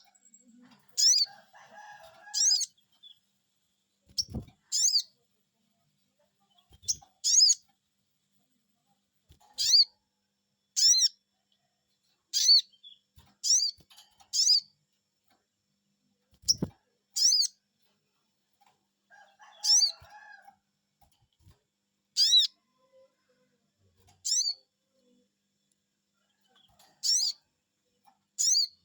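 Sogon bird calling 'cuiit cuiit': short, high, sweeping chirps, mostly in twos, repeated every two to three seconds as a lure call to set other birds singing. Two faint low thumps come in between the calls.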